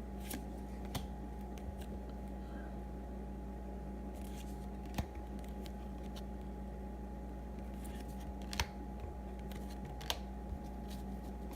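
A few sparse, light clicks and snaps of baseball trading cards being handled and flipped, over a steady electrical hum.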